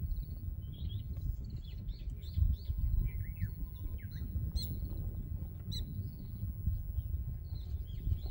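Several small birds chirping and calling, in short quick notes scattered throughout, over a constant low rumble.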